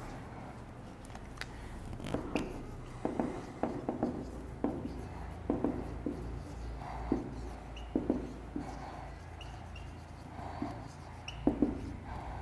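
Marker pen writing on a whiteboard: a string of short, irregular strokes and taps, with a few brief high squeaks.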